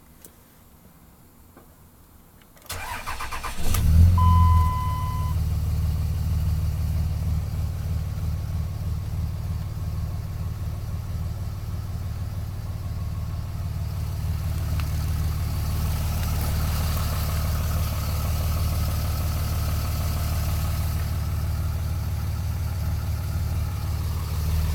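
Dodge Ram 3500's Cummins 5.9-litre straight-six turbodiesel starting. The starter cranks for about a second before the engine catches with a loud surge, then it settles into a steady low idle. A single electronic chime sounds for about a second just after it fires.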